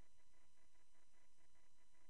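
Faint steady hiss and hum with several constant high-pitched tones, like electrical noise from a recording device; no distinct event.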